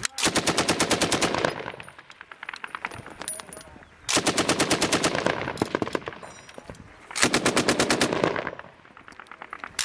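Automatic gunfire: three long bursts of rapid machine-gun fire, each about a second and a half, with fainter scattered shots in the gaps between them.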